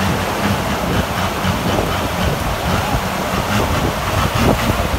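Off-road 4x4 pickup's engine running as the truck works through a mud pit, with wind buffeting the microphone.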